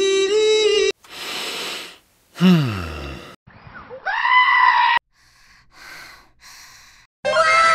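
A string of short comic vocal sound effects for cartoon emoji faces, one after another: a held nasal tone, a burst of hiss, a groan sliding sharply down, a high whiny cry, then a few faint puffs.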